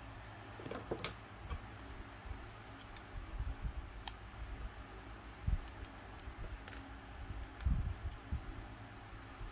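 Scattered small sharp clicks of plastic model-kit parts being worked by hand with nippers, with a couple of soft knocks on the work surface, over a steady low hum.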